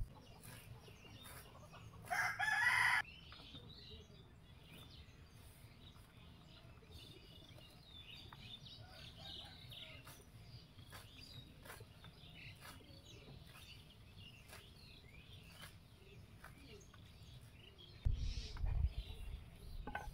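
A rooster crows once, about a second long, a couple of seconds in. Behind it are faint chirps of small birds and scattered light clicks of leaves being cut on a bonti blade.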